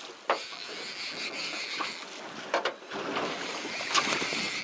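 Water sloshing against the side of a boat's hull, with wind hiss on the microphone and a few sharp knocks.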